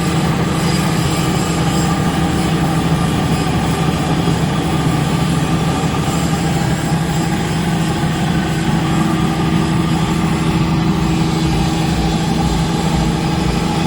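KC-6 ammonia refrigeration compressor running steadily with a loud, even mechanical hum.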